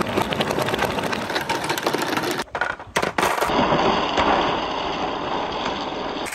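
Orange Dragon Ball replica balls rolling and rattling down a plastic rain-gutter run. After a brief break about two and a half seconds in, many glass marbles roll and click down a wooden pegboard slope.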